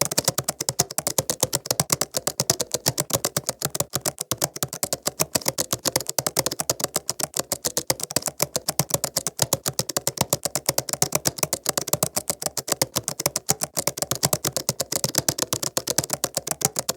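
Fast, continuous typing on a laptop keyboard: a dense, uneven stream of light key clicks, several a second.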